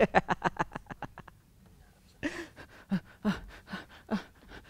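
A man's wordless vocal outburst: a quick run of short, sharp vocal sounds, about eight a second, fading over the first second or so, then after a pause a string of breathy gasps with voice.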